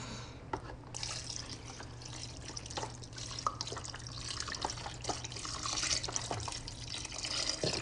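Chicken broth pouring in a steady stream from a carton into a slow cooker, splashing onto the diced tomatoes and corn. The pour starts about a second in.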